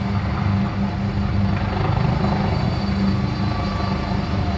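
Helicopter in low flight, its main rotor beating steadily with the engine note underneath.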